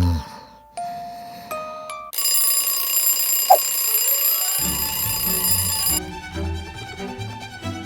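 Background music with an alarm clock ringing from about two seconds in for about four seconds. A low, steady musical beat comes in under the ringing and carries on after it stops.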